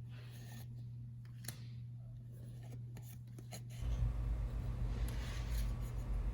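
Playing cards being handled: a few light clicks and slides of cards, then from about four seconds in a louder low rubbing and rumbling handling noise over a steady low hum.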